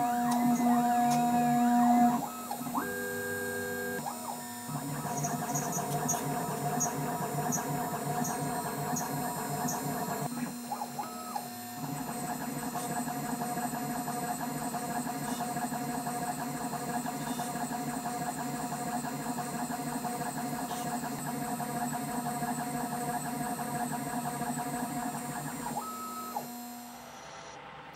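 Bench milling machine running, its end mill cutting into an aluminium block for a counterbored pocket: a steady motor hum under a fine, grainy chatter of cutting. The cutting sound eases twice, about two seconds in and again around eleven seconds, and drops away near the end.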